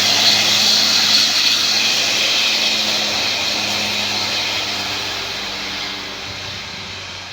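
Tour bus's diesel engine running as the bus pulls away, its sound fading steadily.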